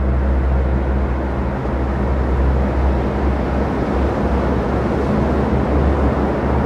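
A deep, steady rumble with a dense rushing noise over it, swelling slightly: a sound-design roar of the sea.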